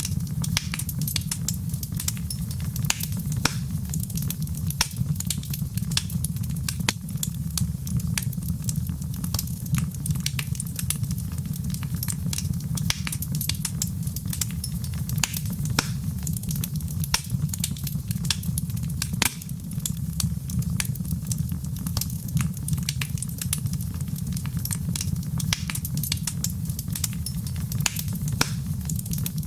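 Fire crackling in a fireplace: irregular sharp snaps and pops over a steady low rumble.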